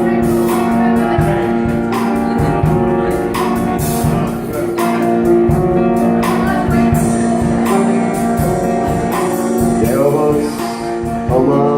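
Live acoustic music: a guitar strummed in a steady rhythm, playing a song's instrumental intro, with a voice sliding up and down near the end.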